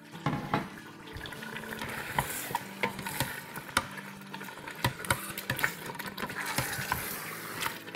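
Wooden spoon stirring chunks of meat in a thick yogurt masala in the stainless steel inner pot of an electric pressure cooker on sauté, with a wet sizzle and irregular light knocks of the spoon against the pot.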